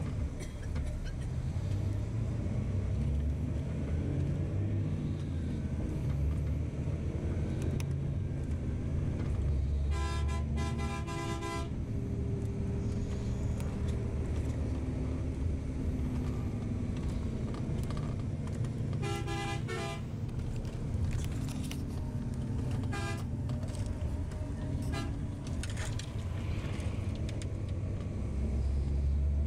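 Motor vehicle's engine and road noise rumbling steadily while driving, with a vehicle horn sounding in a rapid string of short toots about ten seconds in and again just before twenty seconds, and a few briefer toots later.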